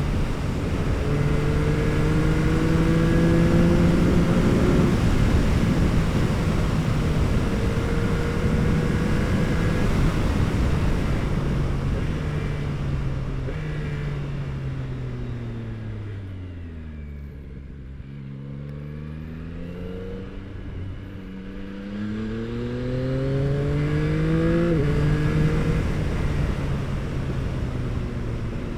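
Yamaha R9's 890 cc three-cylinder engine through an Akrapovič exhaust, heard from the bike while riding: it pulls through a few gears with wind rush, then the revs fall away as it slows, lowest and quietest about two-thirds through. It then accelerates again with rising revs and an upshift near the end.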